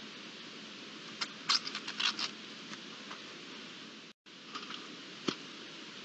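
Steady hiss of a trail camera's microphone at night, with a quick run of sharp clicks and ticks a second or so in. The sound cuts out for an instant near the middle, then a few fainter clicks and one sharper click follow.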